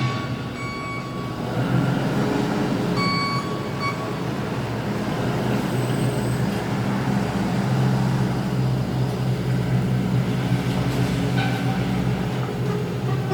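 A large vehicle's engine running with a steady low hum, and a high electronic beep sounding in short bursts twice in the first four seconds.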